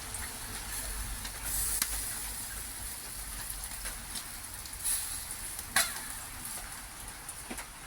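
Burgers and chicken sizzling on a barbecue grill: a steady hiss with a few sharp pops and crackles.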